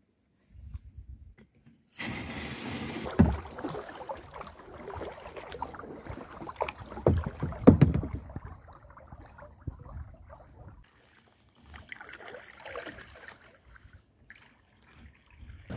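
Kayak paddling on a calm river: uneven splashing and dripping of paddle strokes in the water, with a few sharp, louder thumps, after a near-silent first two seconds.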